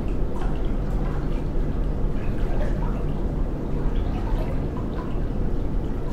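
Water dripping irregularly over a steady low rumbling drone, a dank, echoing ambience.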